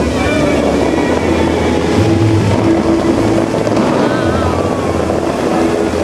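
Bellagio fountain's water jets spraying, a loud steady rush of water, with sustained low musical notes from the show's soundtrack underneath that shift every couple of seconds.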